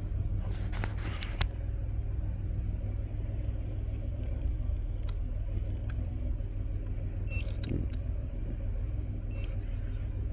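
Car engine idling with a steady low rumble, with a few light clicks and taps over it.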